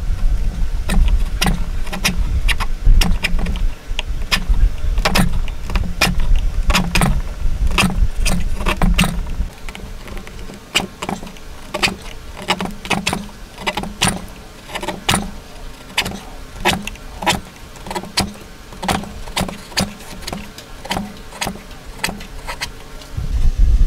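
Hand chisel cutting into a hardwood block, each stroke a sharp knock, about two a second, as waste is pared out between saw cuts for a joint. A low rumble underlies the first ten seconds or so and returns at the very end.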